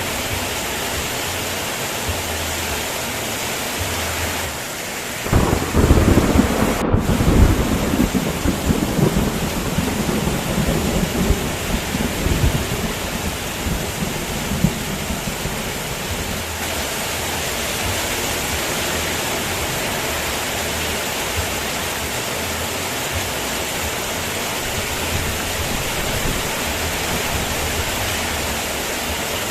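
Steady rain, with a thunderclap breaking in about five seconds in and its low rumble rolling on and fading over roughly ten seconds.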